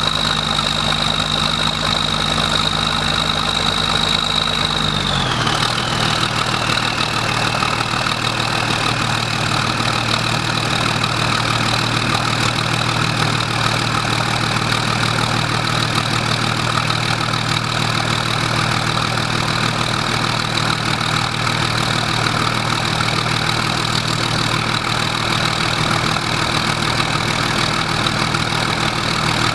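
International Harvester DT436 turbo-diesel in a 1440 combine, running at idle after a cold start at about 35°F. About five seconds in its speed drops, and a high tone falls with it; it then holds a steady, lower idle.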